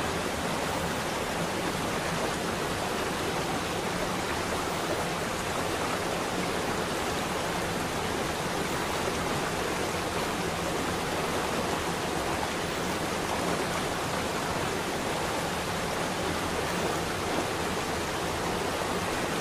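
Steady rushing noise, even and unbroken, with no pitch or rhythm, like water running or pink noise: the masking sound of a subliminal track.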